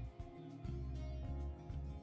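Background music with sustained bass notes changing every half second or so over a light, even beat.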